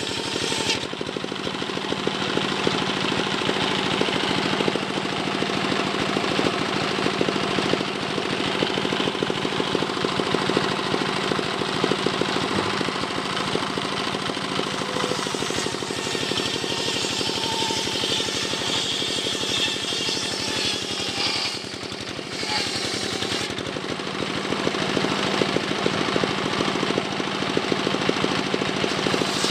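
Belt-driven table circular saw (serkel) running and ripping teak logs: a rapid steady pulsing drive under a harsh rasp of the blade cutting, with a brief dip in loudness about three-quarters of the way through.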